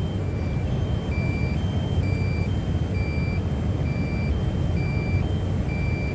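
Low-battery warning beeping from a DJI Mavic Mini's controller: short beeps alternating between a higher and a lower pitch, about two a second, over a steady low rumble. The drone's battery has reached a critically low level.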